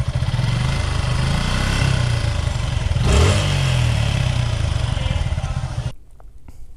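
Suzuki Gixxer FI ABS 2020's single-cylinder engine running and being revved, with a sharp blip about three seconds in before the revs fall back. It cuts off abruptly near the end. This is the engine noise that the service centre put down to a missing rubber piece, but which another mechanic still took for tappet noise.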